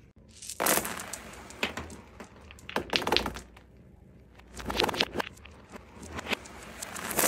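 Small plastic toys and hard balls clattering on a laminate floor, played backwards. There are several separate clusters of clicks and knocks, each building up and then cutting off sharply.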